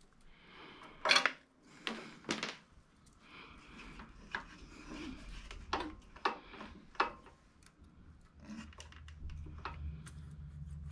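Metal hand tools being handled on a small engine during a valve-clearance check: several sharp clinks and clicks with soft scraping and rubbing between them. A low steady hum comes in near the end.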